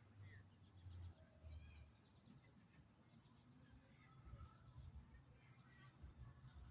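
Near silence with faint, high, short chirps, probably from birds, repeating several times a second through the middle, over an uneven low rumble.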